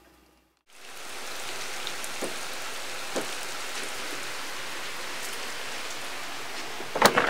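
Steady heavy rain falling on paving and foliage, heard through an open doorway, beginning under a second in. A few faint knocks sound in the middle, and a cluster of sharp clicks near the end.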